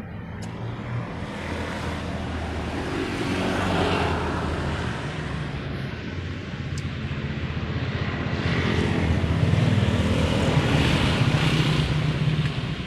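Motor vehicle engines passing close by, the running noise swelling about four seconds in and again more loudly near the end before easing off.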